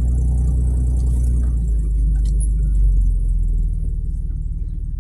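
Nissan's engine running, heard as a low rumble inside the cab while the vehicle tows a lawnmower at low speed. The engine note swells briefly about three seconds in, then eases off.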